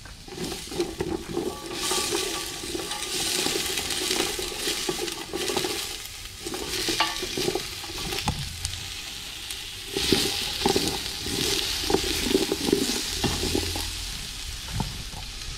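Chopped onions and garlic frying in a stainless steel stockpot while a wooden spoon stirs and scrapes them over the pot bottom. The sizzle swells about two seconds in and again about ten seconds in.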